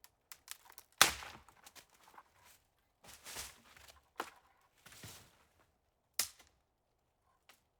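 Foley footsteps of someone hiking, crunching on a forest floor: separate steps roughly a second apart, the loudest about a second in.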